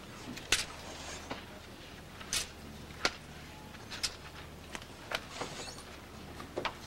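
Quiet lecture-hall room tone: a steady low hum with scattered, irregular sharp clicks and taps, roughly one every half second to second.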